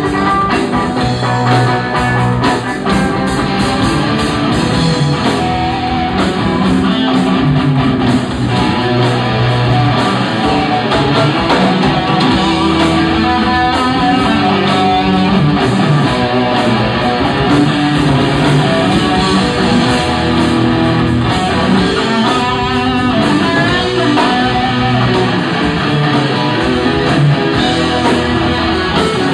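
Live rock band playing a loud, continuous guitar-heavy passage on electric guitars and drum kit.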